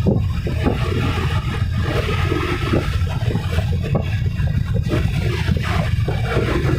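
Motorcycle running at riding speed, with a steady low rumble of wind buffeting the microphone.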